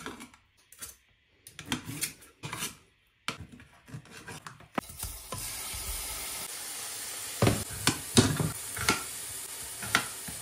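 Knife cuts and taps on a cutting board. About five seconds in, a steady sizzle starts as pieces of liver fry in a hot pan, with a few knocks over it.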